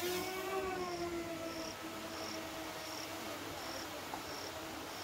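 Small quadcopter drone's propellers humming as it lifts off and climbs away. The pitch eases slightly in the first second, then holds even.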